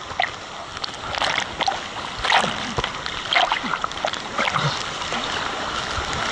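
Water splashing and sloshing right at the camera, in irregular bursts.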